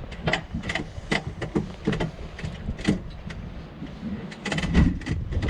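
Wind rumbling on the microphone, with irregular small clicks and rustles of rope and gear being handled while a line is set.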